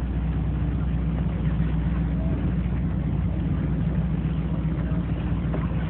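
Motorboat engine running steadily while underway, a low drone with a constant rushing noise over it.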